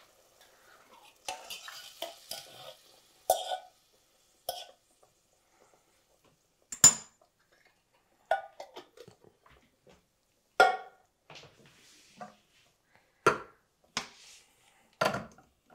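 Coconut milk poured from a can into a stainless steel pot, followed by about eight sharp, irregular metal knocks and clatters of the tin can and spoon against the pot and countertop.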